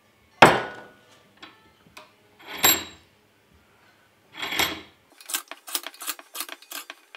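Three sharp metal-on-metal knocks about two seconds apart, each ringing briefly, then a quick run of lighter metallic taps and clicks near the end. The sounds come from a Myford ML7 apron hand wheel being worked on its shaft in a bench vise.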